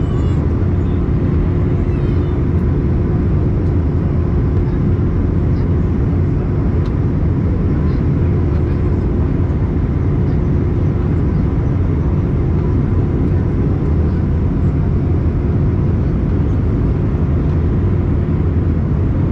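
Jet airliner cabin noise in flight: a steady, unchanging drone of engines and airflow with a constant low hum running through it.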